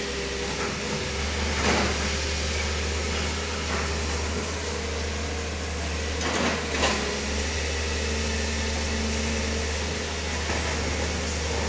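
Hydraulic excavator's diesel engine running steadily with a low hum. A few sharp knocks come through it, the loudest about seven seconds in.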